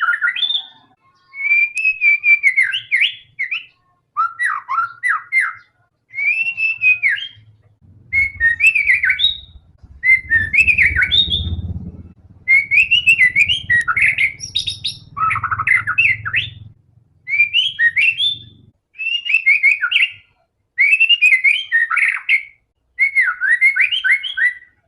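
White-rumped shama (murai batu) in full song: loud, varied whistled phrases a second or two long, repeated with short pauses. A low rumble runs under the song from about a third of the way in to about three-quarters through.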